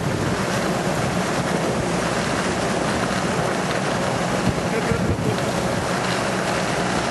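Steady running noise of a lawnmower towing a trailer along a gravel road, with wind buffeting the microphone.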